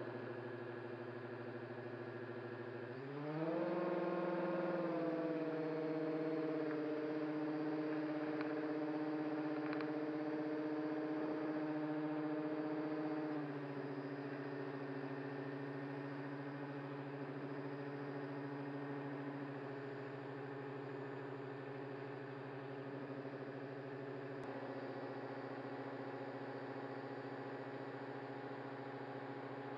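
RC airship's propeller motors running steadily, heard from the onboard camera. About three seconds in they are throttled up, rising in pitch and getting louder; about thirteen seconds in they ease back to a lower steady note.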